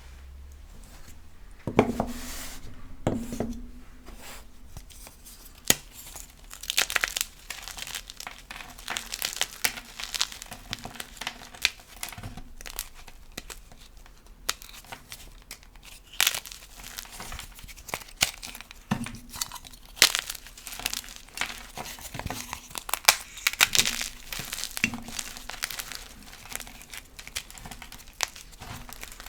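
Gym chalk blocks being crushed by hand: dense, irregular crunching and crumbling, with a few louder crunches.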